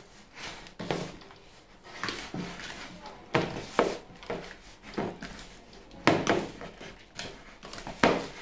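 A hand kneading and pressing crumbly ground-almond dough in a bowl: irregular dull knocks, roughly one a second, as the fist presses into the bowl, with a gritty rustle of the almond crumbs in between.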